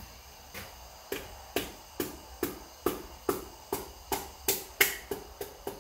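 Hand ratchet clicking over and over, about two or three sharp metallic clicks a second and a little quicker near the end, as nuts are run down on the engine's bottom end.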